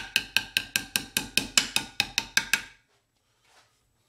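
Ball peen hammer tapping along a crease in thin baking-pan sheet metal clamped in a vise, played back sped up fivefold so the strikes come fast and even, about five a second, each with a short metallic ring. The tapping stops abruptly a little under three seconds in.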